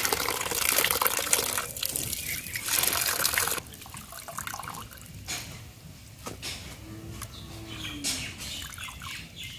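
Water running from a hose into a steel bowl and splashing as hands swish Malabar spinach leaves in it. After about three and a half seconds the sound drops to dripping and light knocks as the wet leaves are lifted out into a steel colander.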